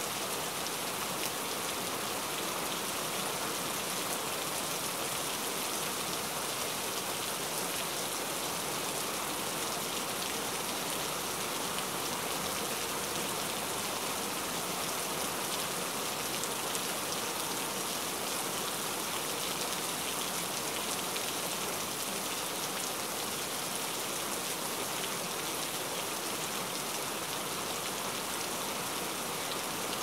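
A steady rain-like hiss that stays even and unchanging throughout, with no speech over it.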